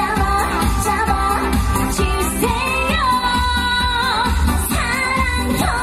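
A woman singing a trot song live into a microphone over accompanying music with a steady bass beat, holding one long note with vibrato about three seconds in.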